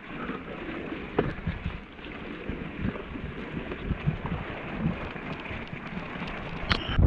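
Mountain bike rolling over a rocky, stony trail: tyres on the stones and the bike rattling, with many small knocks, and wind buffeting the microphone. A brief high squeal near the end.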